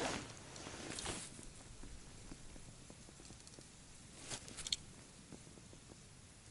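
Faint rustling of winter clothing and gloves while a small ice-fishing rod is handled over a hole in the ice, with a few light clicks about four and a half seconds in.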